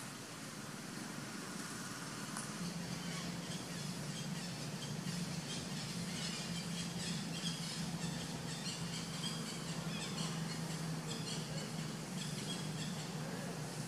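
Outdoor forest ambience: many short, scattered high chirps and squeaks over a steady low hum that sets in a couple of seconds in.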